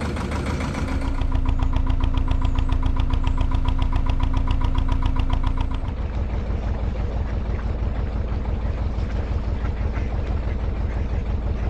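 Narrowboat's diesel engine running steadily with a fast, even beat. About six seconds in the sound changes to a smoother, steady low engine drone.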